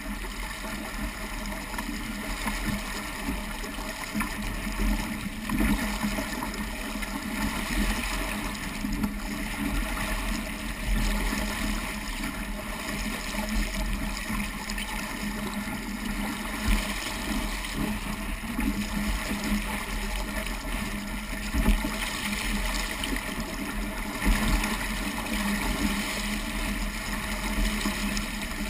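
Water rushing and splashing along the hull of a small Sabot sailing dinghy moving fast through choppy water, in irregular surges, with a low rumble of wind on the microphone.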